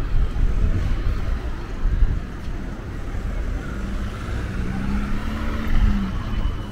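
Street traffic: cars driving past, with a steady low rumble and a hum that rises slightly in pitch for about two seconds in the second half.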